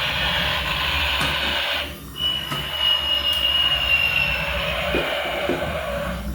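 A battery toy's electronic sound effect playing through its small speaker: a steady noisy rumble with a held, slightly falling whistle-like tone. The rumble cuts out for a moment about two seconds in and starts again.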